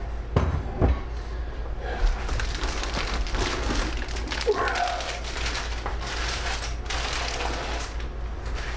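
A few thumps on a table, then a long stretch of plastic bag crinkling and rustling as body armor is handled and unwrapped.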